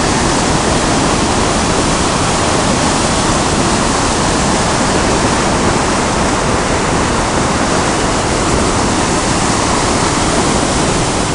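Rain-swollen river churning through white-water rapids in a stone-walled channel: a loud, steady rush of water.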